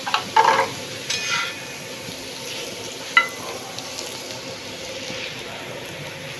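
Potato slices sizzling in oil on a flat griddle while a metal slotted spatula scrapes and turns them. A few sharp clinks of the spatula against the griddle, a clatter in the first second and the loudest single clink about three seconds in.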